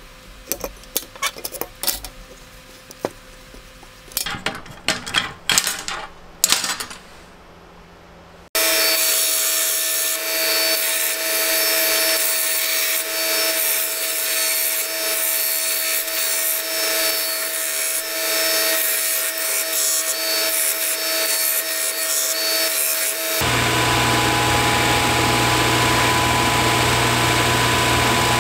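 First a string of sharp taps and clicks, then, after an abrupt cut, a power tool running steadily with a whine. Near the end another cut brings in a different machine with a low steady hum.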